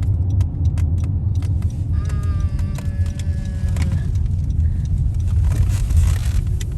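Car road noise heard from inside the cabin: a steady low rumble with scattered light clicks and rattles, and a faint held tone for about two seconds in the middle.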